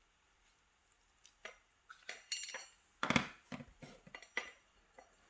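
A pin-tumbler challenge lock and its small metal parts being turned over and handled on a work surface during disassembly. It gives a string of small metal clinks and knocks starting about a second in, one with a short metallic ring, and the loudest cluster about three seconds in.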